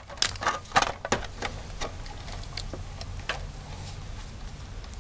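A quick run of sharp clicks and snaps, then a few scattered ones: tin snips cutting wires and metal parts being handled in a window air conditioner's electrical control box.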